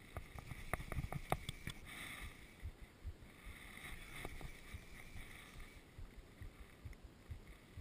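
Handling noise right at a waterproof camera held at the water line: a quick run of sharp clicks in the first couple of seconds, rustling as a hand and sleeve brush past it, and soft low bumps of water against the camera housing throughout.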